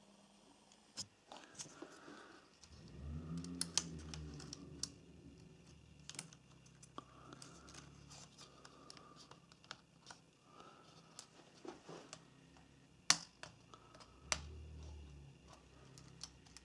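Small plastic clicks and taps from handling a Nikon D3100's pop-up flash housing as it is clipped back on and pressed down to test its return spring, with two sharper clicks about three quarters of the way through.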